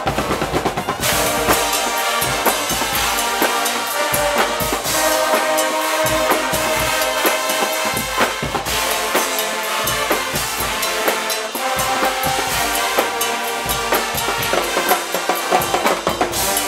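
Guggenmusik carnival band playing: brass instruments over loud, driving drums with bass drum and snare.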